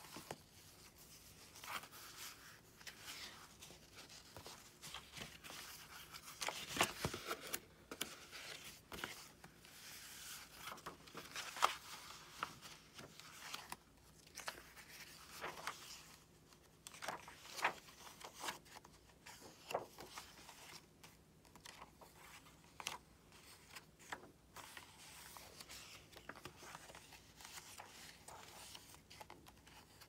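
Paper pages and a kraft-paper cover of a handmade junk journal being turned and handled: faint, irregular rustling and crinkling with soft page flaps and small taps. A few louder rustles stand out along the way.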